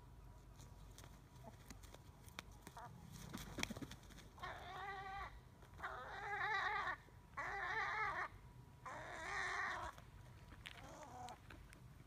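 A gull calling in four long, wavering cries in quick succession, each about a second long, starting a few seconds in, with a fainter call near the end.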